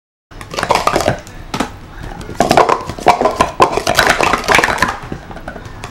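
Plastic sport-stacking cups clattering in a fast, dense run of clacks as two stackers stack them up and sweep them down, starting after a moment of silence.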